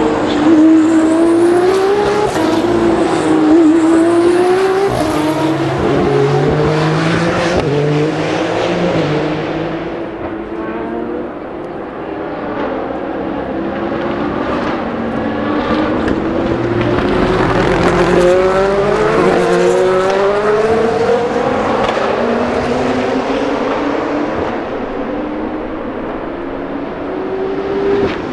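Race cars running at speed on the circuit, several in succession, their engine notes rising and dropping back again and again as they work through the gears. The sound is loudest at the start and again about two-thirds of the way in, with a quieter spell around the middle.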